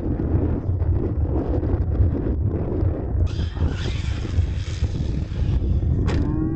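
Wind buffeting the microphone in a loud steady low rumble, over which an R/C monster truck is heard driving, wheelieing and landing jumps on dirt.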